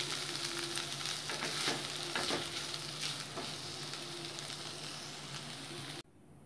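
Shredded chicken filling sizzling in a nonstick pan while a wooden spatula stirs and scrapes through it, the sizzle slowly dying down with the stove just switched off. The sound cuts off abruptly about six seconds in.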